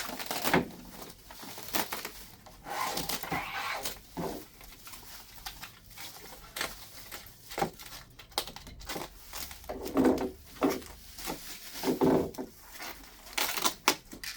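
Packing material and cardboard handled during unboxing: rustling, crinkling and tearing with scattered knocks, and two louder dull knocks about ten and twelve seconds in.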